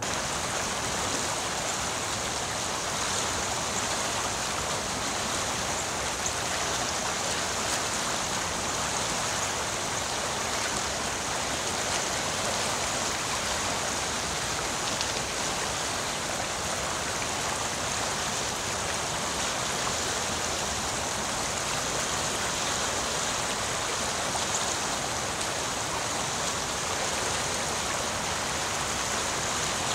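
Shallow stream running steadily over rocks, a continuous rushing of water.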